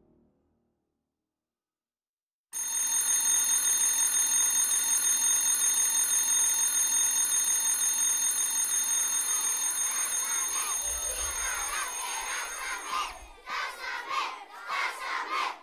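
Electric school bell ringing steadily, starting about two and a half seconds in and cutting off near the end. Children's shouting and cheering builds over the last few seconds as they run out.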